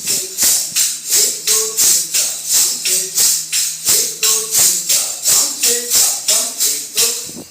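Lezim jingles clashing in a steady rhythm, about three strokes a second, over a recurring lower pitched beat, keeping time for the kadam taal marching step. The rhythm stops suddenly at the end.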